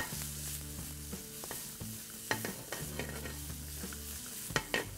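Chopped garlic, ginger and green chillies frying in oil in a steel pan, sizzling steadily while a wooden spatula stirs them, scraping and knocking against the pan a few times, loudest twice a little before the end.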